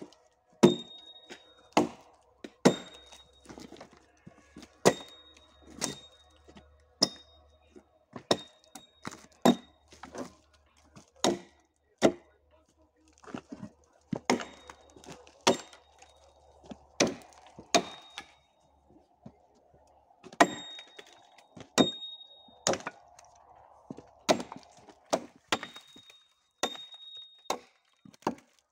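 An axe chopping wood: a long run of sharp strikes about once a second, some with a brief metallic ring.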